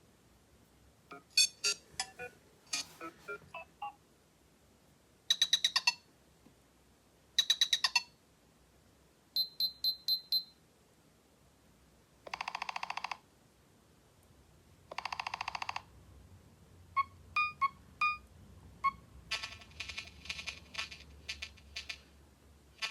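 Nothing Phone 1's original ringtones played one after another: a series of short electronic beep-and-blip patterns, each a second or two long and separated by brief gaps, with a denser, busier one running near the end.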